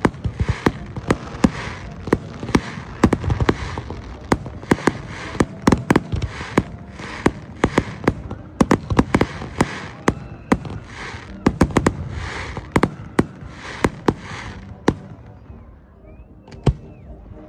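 Fireworks display: a fast barrage of shell bursts, sharp bangs several a second with crackling between them, thinning out about fifteen seconds in.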